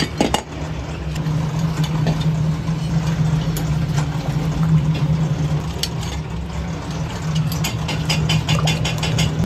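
Steady low hum of running workshop machinery, with scattered light metal clinks and a quick run of taps late on as cast meat-mincer bodies are handled with a tool.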